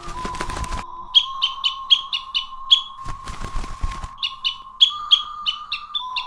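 A small bird chirping in quick, evenly repeated runs of short high chirps, with two bursts of rustling noise, one at the start and one about three seconds in, over a steady tone.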